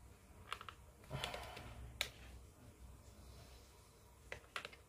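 Faint clicks and taps of hard plastic as the two halves of an Airfix Avro Lancaster kit's fuselage are handled and pressed together: a few scattered clicks, a sharper one about two seconds in and a small cluster near the end.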